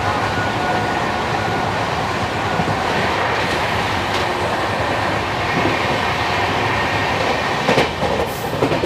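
Express passenger train running along the track, heard from an open coach door: a steady rumble and rush of wheels on rail, with a few sharp clicks near the end.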